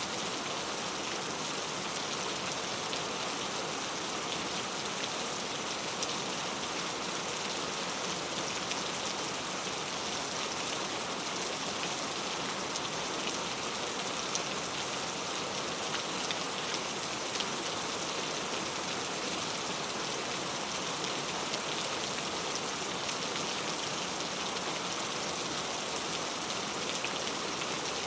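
Steady rain falling into a puddle: a dense, even hiss of many small drops hitting water, holding at a constant level.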